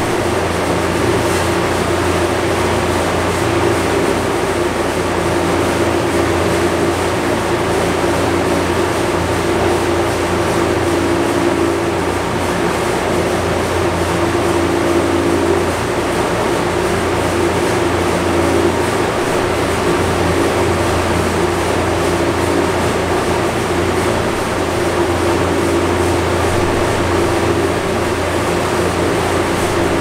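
BMW B58 turbocharged inline-six with a catless downpipe and stock exhaust, running at a constant speed on a chassis dyno: a steady drone that holds one pitch, with no rev rise.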